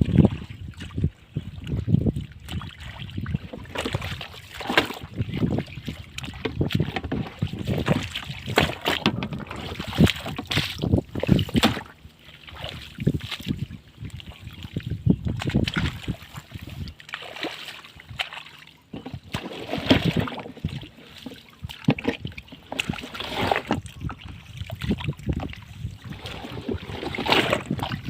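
Irregular splashing and sloshing in shallow water, in quick uneven strokes, as people wade and work the water by hand.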